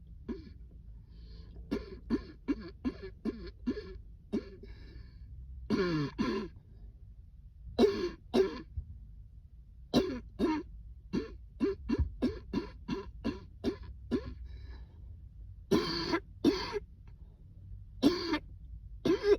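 A person in a coughing fit brought on by cold air: runs of short, rapid coughs, the longest about ten in quick succession around the middle, with single harder coughs between the runs and near the end.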